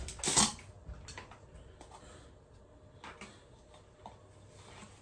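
Plastic screw lid of a large protein powder tub being twisted off and handled: a loud plastic knock about half a second in, then a few faint taps and rustles of the plastic tub and lid.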